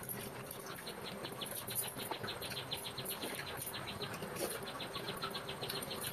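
Rapid, even chirping from a small animal, about six short high chirps a second, starting just under a second in.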